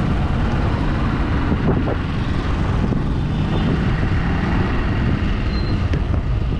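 Honda XR150L motorcycle's single-cylinder engine running while riding along a city street, heard as a steady, loud rumble mixed with wind noise on the microphone.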